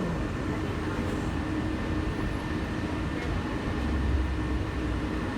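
Walt Disney World monorail running, heard from inside the car: a steady low rumble with a constant hum over it, swelling lower and louder about four seconds in.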